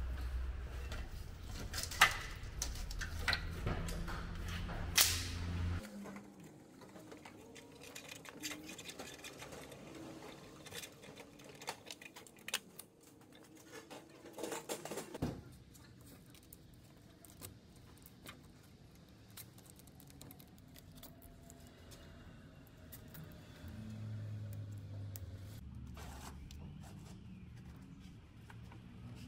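Scattered clicks, rattles and rustles of a wiring harness being handled and fastened along a vehicle's chassis. A low hum runs under the first six seconds and comes back near the end.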